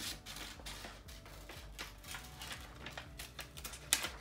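Scissors snipping through paper in a run of short, irregular snips, with one sharper snap near the end.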